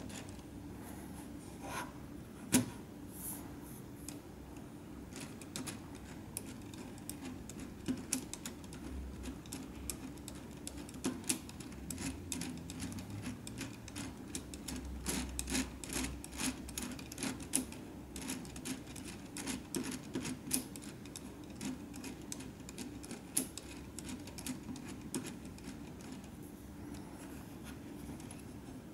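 A hand-built LEGO Technic sequential 3+R gearbox being worked by hand: the plastic gears and axles whir steadily as they are turned, with many sharp plastic clicks from the shift mechanism and its rotary catch.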